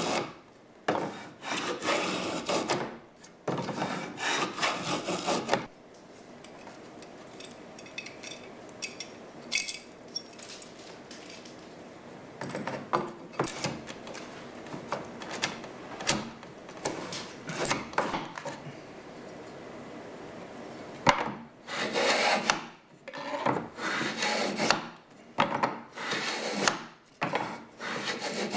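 Rabbeting plane shaving the rabbet of a wooden door jamb, in a run of quick rasping strokes. About five seconds in the strokes give way to a quieter stretch with only a few light scrapes, and the strokes start again about 21 seconds in.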